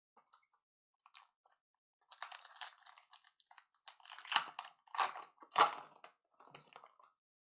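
Crinkling and rustling of trading-card pack wrappers and cards being handled, in irregular bursts, the loudest three about a second apart near the middle.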